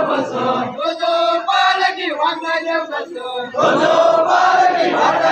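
A crowd of men chanting and calling out together in unison with long, held notes. The loud chorus breaks off just under a second in, thinner voices carry on, and it swells loud again about three and a half seconds in.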